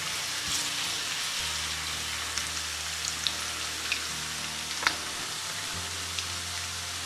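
Sliced garlic and ginger frying in vegetable oil in a wok as the oil heats up: a steady sizzle with a few sharp crackles and pops. The garlic is just about to start browning.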